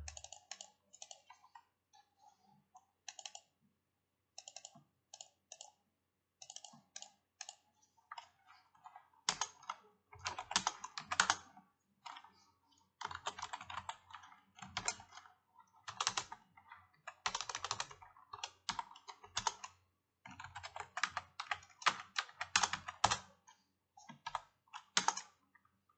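Typing on a computer keyboard: irregular runs of key clicks with short pauses between them, coming faster and louder from about nine seconds in.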